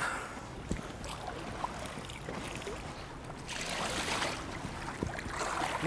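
Water splashing at the side of a boat about three and a half seconds in, as a hooked giant trevally is grabbed by hand at the surface; otherwise steady sloshing water noise.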